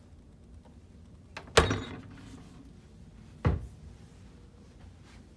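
Minibar refrigerator being shut: two knocks about two seconds apart, the first one louder.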